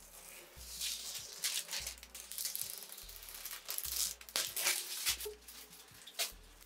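Thin plastic protective film crinkling in a run of short crackles as it is peeled and crumpled, over faint background music with a low beat about once a second.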